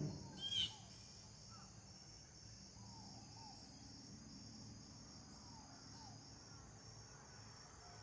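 Outdoor insect chorus: a steady, rapidly pulsing high trill of crickets. There is one short sharp chirp about half a second in, and a few faint short chirps scattered later.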